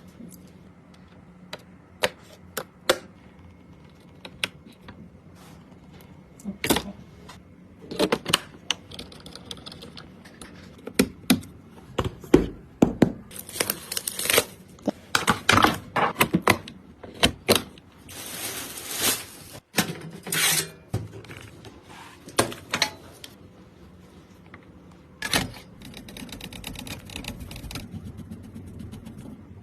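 Clicks, knocks and rustling of PC parts and their packaging being handled, with a couple of longer scraping or rustling stretches around the middle and a faint rapid ticking near the end.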